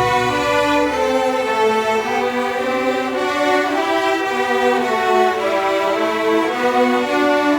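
Orchestra with bowed strings, violins and cellos, playing a slow melody in long held notes; the low bass notes drop out about a second in.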